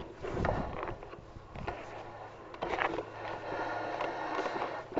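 Mountain bike riding along a dirt singletrack: knobby tyres running over the dirt, with scattered clicks and rattles from the bike.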